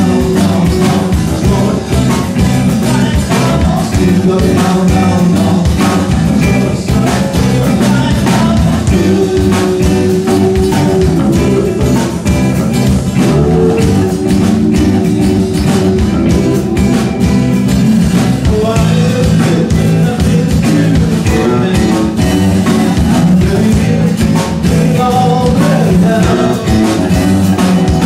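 Live rock band playing a song: acoustic and electric guitars over a drum kit, loud and steady, with a melody line moving over the chords.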